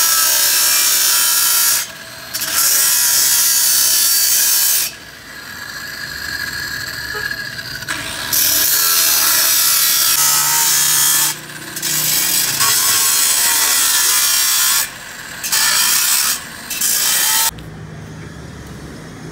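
Angle grinder with an abrasive cut-off disc cutting steel bar, in about six bursts of a few seconds each with short breaks between them. The grinding stops near the end.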